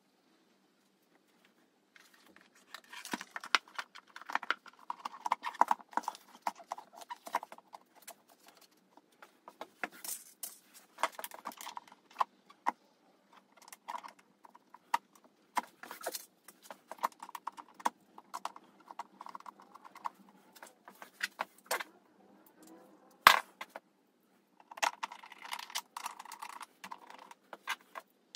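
Irregular hard-plastic clicks, knocks and rattles of a motorcycle air filter and airbox lid being handled and fitted into place, with one sharp, louder knock late on.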